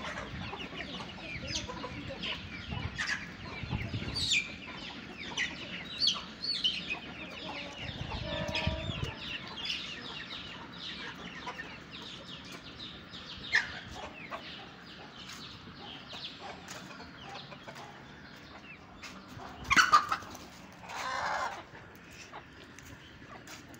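Chicks peeping in quick high chirps and adult chickens clucking as a small flock of Aseel and fancy chickens forages. About twenty seconds in, a chicken gives a sharp, loud squawk, followed by a longer call lasting under a second.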